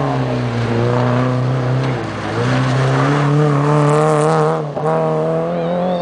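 Small competition hatchback's engine pulled hard through a slalom, its pitch falling and rising as the throttle is lifted and reapplied between the cones. There is a short lift about two seconds in and another just before five seconds.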